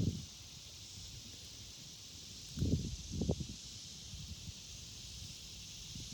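Outdoor background with a steady high hiss, and a few short, low rustling thumps about two and a half to three and a half seconds in.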